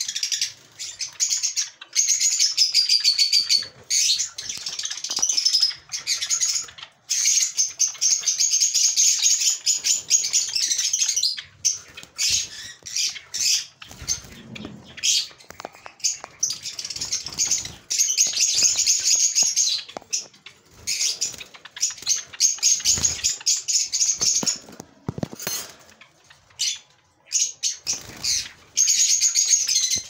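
Small cage birds chirping: dense runs of rapid, high chirps lasting a few seconds each, with short breaks between, and a few soft knocks.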